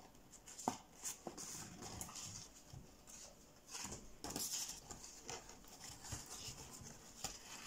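Faint rustling and light taps, with a few sharp clicks, from cut-out shadow puppets being handled and moved behind the screen.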